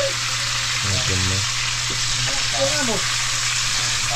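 Food frying in hot oil: a steady sizzle with a low hum beneath it.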